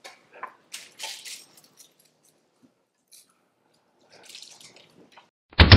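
Soft, irregular scuffs and clicks of a dog's paws walking across a wooden deck strewn with dry leaves, with a short loud burst near the end.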